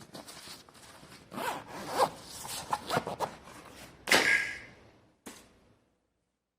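A zipper being pulled in several short, scraping strokes with rubbing handling noise, the loudest pull about four seconds in.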